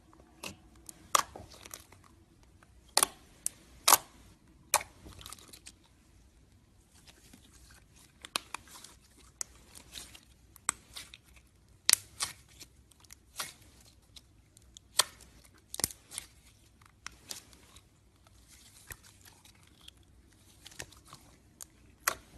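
Slime being worked by hand: irregular sharp pops and crackles, one to three a second, with faint tearing sounds between them.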